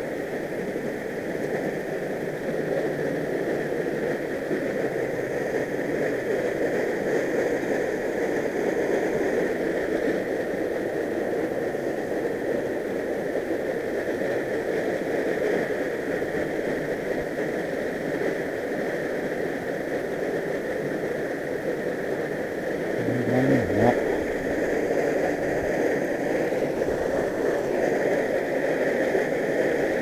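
Mountain stream rushing steadily over boulders and a small cascade. A brief knock sounds a little over twenty seconds in.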